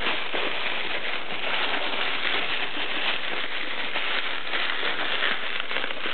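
Bubble wrap crinkling and crackling as hands handle and unwrap it, a steady dense crackle of many small clicks.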